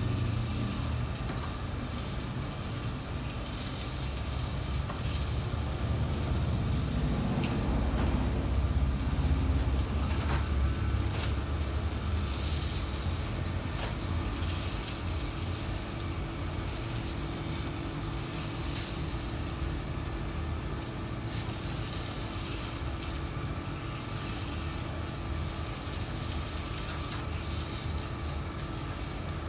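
Diced chicken sizzling steadily on an electric flat-top griddle, over a steady low hum. Plastic bag rustling and small handling clatter about midway.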